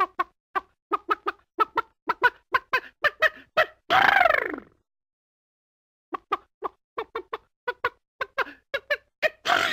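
Chicken sound effect: a rapid run of short clucks, a longer call falling in pitch about four seconds in, and after a pause more clucks ending in a louder, noisier burst like a sneeze.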